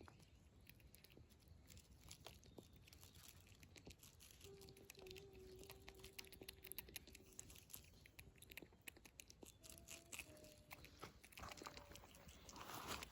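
Faint, quick clicks of a black squirrel chewing and biting into mango, growing busier toward the end. A faint steady tone sounds for a few seconds midway.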